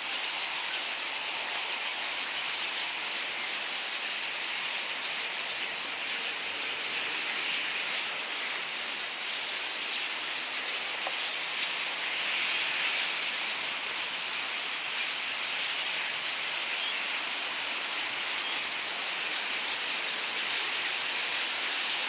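A large flock of birds calling all at once: a steady, continuous chatter of countless overlapping high chirps, with no single call standing out.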